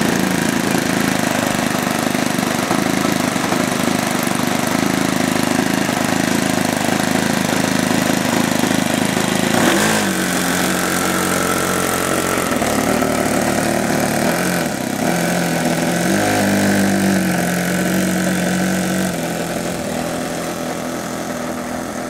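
Engine of a Seagull Models Bücker Jungmeister RC biplane running steadily at low throttle. About halfway through its pitch drops and then wavers up and down as the throttle is worked while the plane taxis away, and it grows fainter near the end.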